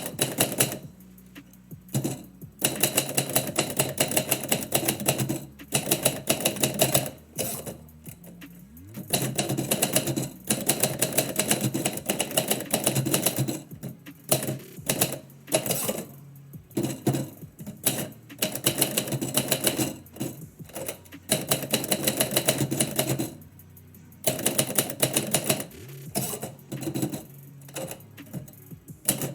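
Typewriter keys struck in quick runs of clacks, broken by short pauses as the typist stops between words and lines.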